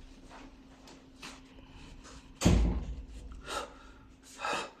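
A door being shut with a single heavy thud about halfway in, followed by a couple of short, softer breathy sounds.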